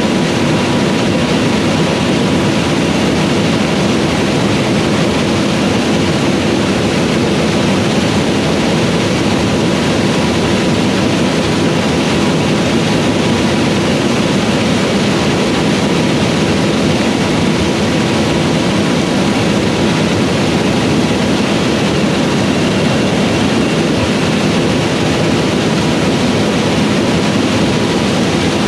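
Fendt Ideal 8 combine running steadily while harvesting corn: a loud, constant machine drone with a few steady hums through it and no change in speed.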